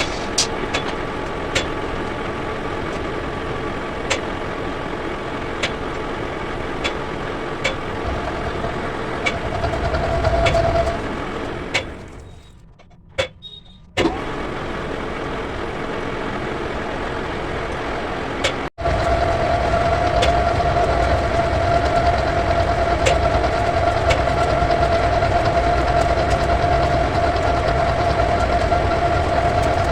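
Metal lathe running steadily on a truck bellcrank part, with faint regular ticks. It drops out briefly twice, and after the second break a steady high whine stands out over the machine noise.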